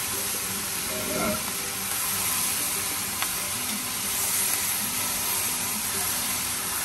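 Beef and vegetables sizzling in a hot cast iron Dutch oven while being tossed with tongs: a steady frying hiss, with a light click about three seconds in.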